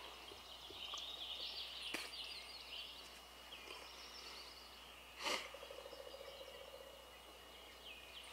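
Quiet woodland morning: faint small birds chirping and twittering. A sharp knock comes about five seconds in, followed by a short, fast low rattle.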